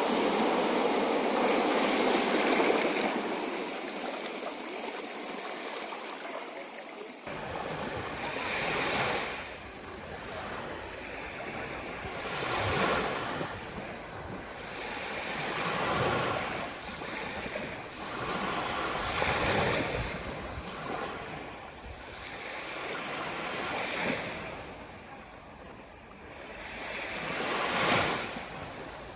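Sea surf: waves breaking and washing up a shore, each one swelling and falling away every three to four seconds. A louder, denser wash in the first seven seconds changes abruptly to the gentler rhythm.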